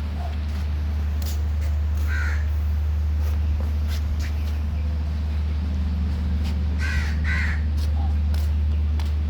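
A few short bird calls, once about two seconds in and twice in quick succession around seven seconds, over a loud steady low hum.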